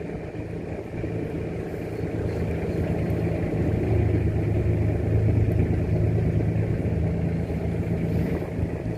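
Boat engine running with a steady low hum, growing louder over the first few seconds and then holding.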